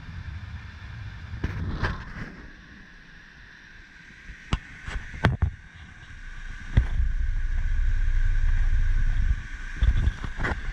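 Low rumble of wind buffeting the camera microphone, swelling to its loudest for about two seconds past the middle, with a few sharp handling clicks, over the idle of a 2021 Ford EcoSport's 2.0-litre four-cylinder engine heard through the open driver's door.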